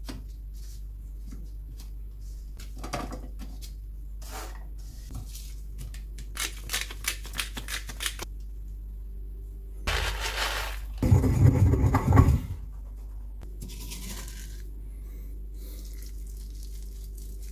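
Food being handled in a nonstick frying pan: scattered light taps and clicks, then a louder clattering rustle lasting a couple of seconds about ten seconds in, over a steady low hum.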